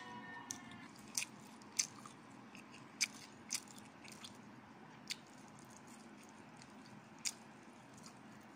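Quiet chewing and crunching of food close to the microphone, with a few sharp, irregular clicks spread through it.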